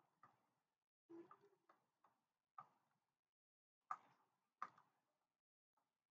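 Near silence with a few faint, irregular clicks of a stylus tapping on a tablet during handwriting.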